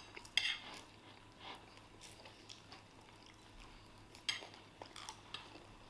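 Metal cutlery clicking and clinking against a plate a few times during a meal, with quiet stretches between; the sharpest click is about four seconds in.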